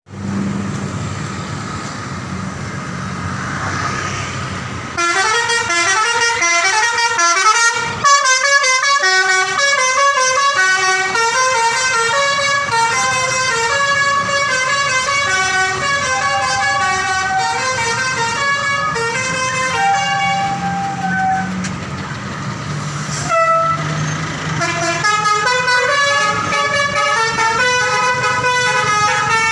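Indonesian 'telolet' bus horn: a set of multi-tone air horns playing a quick melody of stepped notes over the bus engine running. The first five seconds or so are engine rumble before the horn tune starts, and the tune breaks off briefly a couple of times.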